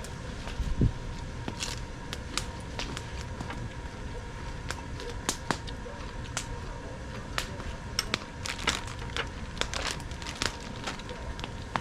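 Wood fire crackling, with irregular sharp pops and snaps over a low rumble, and one low thump about a second in.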